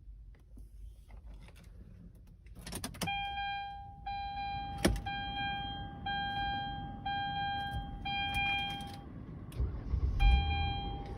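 Hyundai Santa Fe's in-car warning chime sounding a steady tone about once a second, pausing briefly near the end before starting again. A few sharp clicks and a jingle of keys come in among the chimes.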